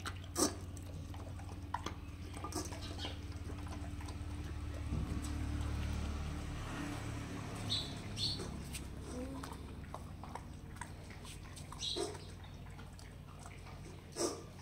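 An American bully and then a Rottweiler eating dry kibble from metal bowls: irregular crisp crunches and clicks of teeth and kibble against the bowl. A low steady hum sits underneath for roughly the first half.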